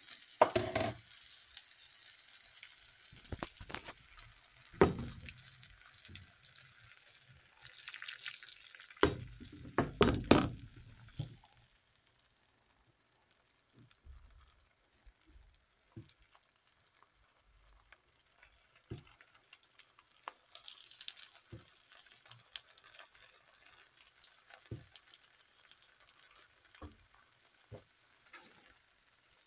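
Eggs frying in a pan of bubbling fat: a steady sizzle that drops low through the middle and picks up again. A few louder bumps and rustles come in the first ten seconds or so.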